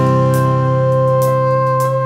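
Background music: a long held chord with light ticking percussion.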